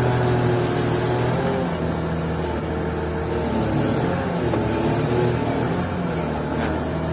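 Caterpillar 120K motor grader's diesel engine running under hydraulic load while the blade lift controls work to tilt the blade up on its side. The engine note shifts about two seconds in, and a wavering whine rises and falls near the middle.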